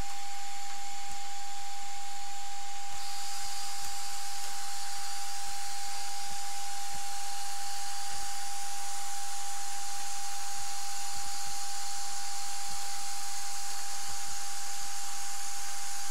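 A single steady high tone from a loudspeaker sealed inside a plastic bag, with the hiss of a helium jet filling the bag around it; the hiss grows brighter about three seconds in.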